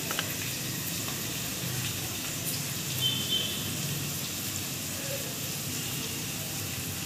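Steady sizzle of onion and green chilli frying in hot oil, with a few light clicks of a steel potato masher against a steel plate.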